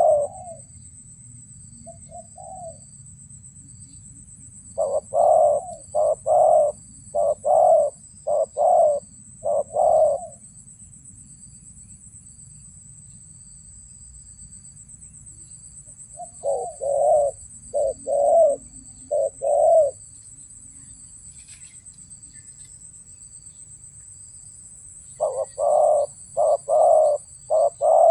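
Spotted doves cooing in repeated phrases of five or six notes, with a steady high-pitched insect buzz going on throughout.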